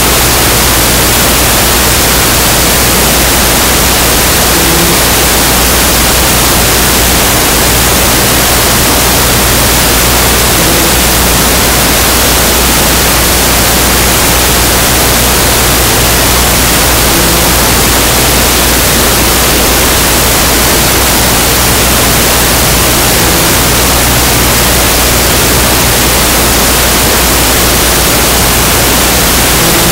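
Loud, steady static hiss like white noise.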